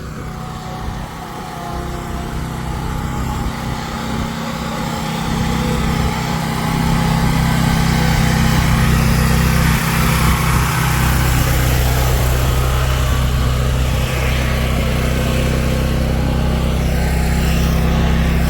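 A vehicle engine running steadily, growing louder over the first several seconds and then holding at a steady level.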